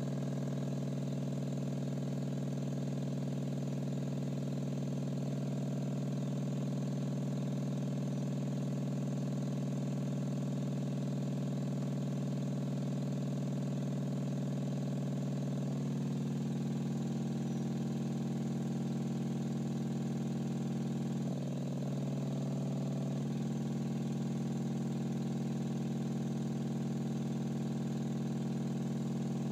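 Sustained low drone tone with a stack of overtones, driving cymatic ripple patterns. The upper overtones shift in steps a few times, about a fifth of the way in, about halfway, and briefly around three-quarters of the way.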